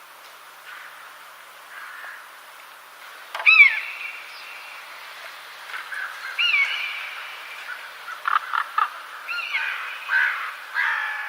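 Birds calling: loud, downward-slurring call notes about every three seconds, a quick run of short notes in between, over a steady background hiss.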